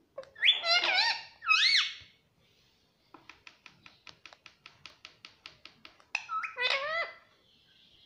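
Indian ringneck parakeet giving two high, sliding calls, then a run of about fourteen quick even clicks as it taps its beak against the mirror glass, about four or five a second, then another sliding call near the end.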